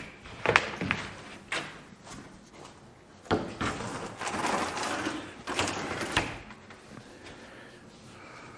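A few sharp knocks, then a few seconds of scraping, clattering handling noise with more knocks, which dies down near the end.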